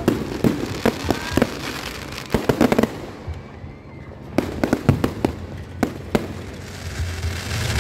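Aerial fireworks display, shells bursting overhead in rapid sharp bangs. The bangs are bunched into dense volleys about two and a half seconds in and again around five seconds, with scattered reports between.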